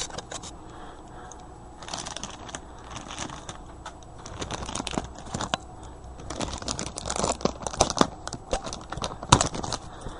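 Plastic wrap being torn and pulled off a packaged item, with irregular crinkling and crackling that grows busier and louder in the second half.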